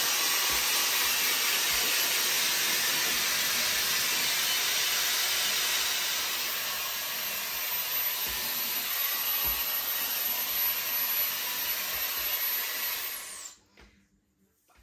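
Shark FlexStyle hot air styler running as a hair dryer: a steady rush of air with a faint high motor whine. About thirteen seconds in it is switched off and the whine falls away as the motor spins down.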